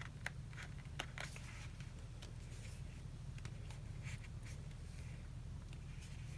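Faint rustling and soft clicks of a thick sticker book's pages being handled and leafed through, over a low steady hum.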